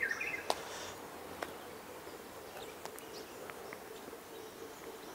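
Outdoor ambience with a few short bird chirps about half a second in, a handful of faint scattered clicks, and a faint steady hum underneath.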